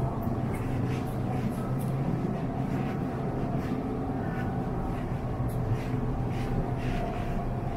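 Steady low hum of a supermarket's refrigerated coolers and ventilation, with faint regular footsteps about twice a second.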